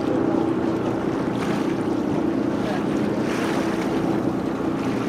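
Catamaran tour boat's twin turbocharged Detroit Diesel engines running with a steady, even drone, under a rush of water and wind buffeting the microphone.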